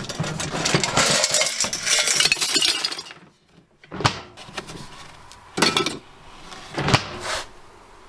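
Pieces of a scrapped desktop computer clattering and clinking as they are handled and dropped. A dense rattle runs for about three seconds, then comes a pause and three shorter clatters.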